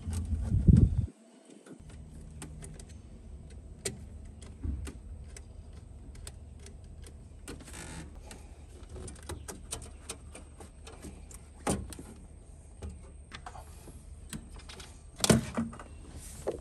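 Scattered clicks, knocks and rattles of hands and tools taking off a Duramax LLY's plastic air intake tube, with louder knocks now and then. A steady low hum cuts off about a second in.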